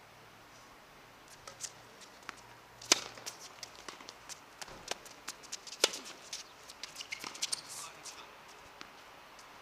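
Tennis rally on an outdoor hard court: two sharp racket-on-ball hits about three seconds apart, with many lighter clicks and scuffs of tennis shoes on the court between and after them.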